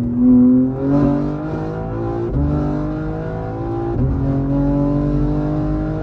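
Tuned 750 hp BMW M3 G80's twin-turbo straight-six at full throttle, heard from inside the cabin. The engine note climbs steadily in each gear, with quick upshifts about a second in, near two and a half seconds and at four seconds, then pulls in a longer gear.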